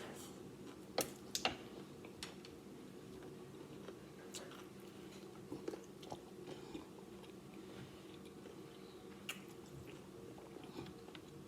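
A person chewing and biting food quietly close to the microphone, with a few short sharp clicks or crunches. The two loudest come about a second in, another comes near the end, and a faint steady hum sits underneath.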